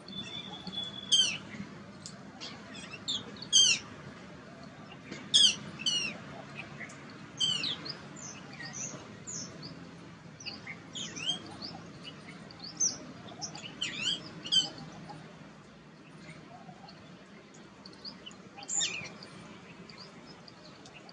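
Songbirds chirping: quick runs of three to five high, falling notes, repeated at irregular intervals, most often in the first half, with one more run near the end.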